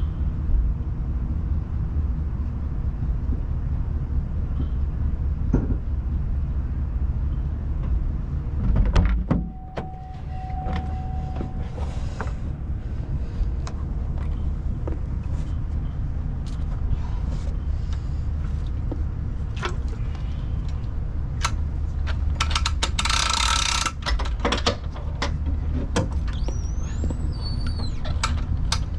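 Chevy 1500 van engine idling with a steady low rumble, with scattered clicks and knocks from handling the boat and trailer, and a brief louder rushing noise about two-thirds of the way through.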